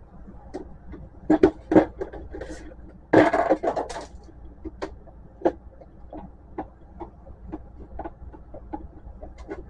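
Plastic housing of an HP Photosmart C4480's scanner unit clicking and cracking as a flat-blade screwdriver pries it apart: two sharp clicks just over a second in, a longer crackling scrape around three seconds in, then lighter ticks and taps.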